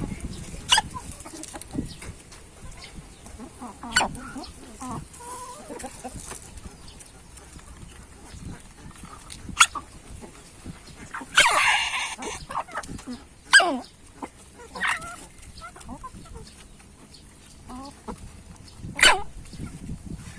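A hen hiccuping from choking: about six short, sharp hics a few seconds apart, with one longer, noisier sound just past the middle and soft clucks between. The owner puts the choking down to the hen eating too greedily.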